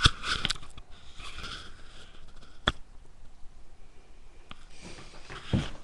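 A 4-month-old German shepherd–husky mix puppy sniffing close to the microphone in short bursts, with a single sharp click about halfway through.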